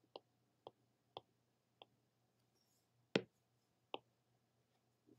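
Faint, sharp clicks of a stylus tapping a pen tablet during handwriting: about six, spaced irregularly, the loudest about three seconds in.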